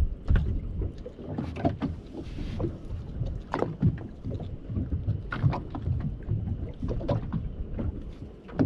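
Water slapping and lapping against the hull of a small open boat drifting with its engine off, with wind rumbling on the microphone. Irregular knocks and splashes come every second or so.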